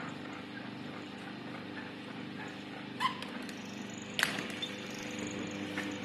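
Electric gear motor of a bench-top cable stripping machine running with a steady hum. A sharp click sounds about three seconds in, and a louder knock a little after four seconds.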